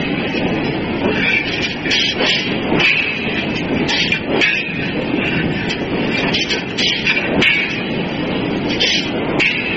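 Large industrial forging hammer working a red-hot steel train-wheel blank: a steady, loud mechanical din broken by sharp clanks at irregular intervals, often two in quick succession.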